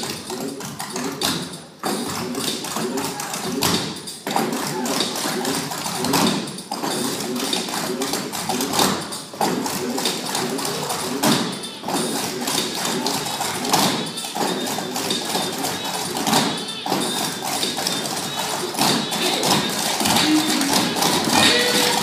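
Cloggers dancing, the metal taps on their clogging shoes striking the floor in fast, rhythmic patterns.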